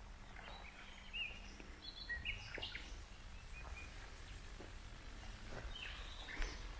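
Small birds giving short, high chirps in scattered bursts, mostly in the first half and again near the end, over a steady low rumble of outdoor background noise.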